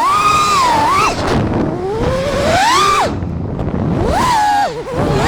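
FPV racing quadcopter's brushless motors whining, the pitch sweeping up and down with the throttle: high and wavering, a long climb to a peak about three seconds in, a sudden drop, then another quick rise near the end.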